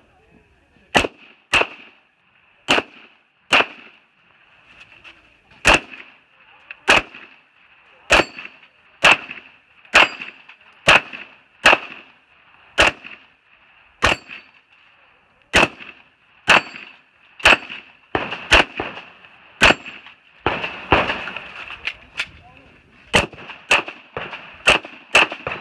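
Glock 17 9mm pistol firing a competition stage: a long, irregular string of sharp shots, often in quick pairs, starting about a second in, with steel plates clanging when hit.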